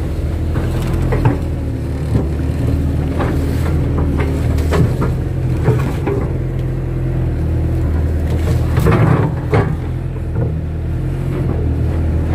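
Kato crawler excavator's diesel engine running steadily, with scattered short knocks and clanks from the machine at work, several together about nine seconds in.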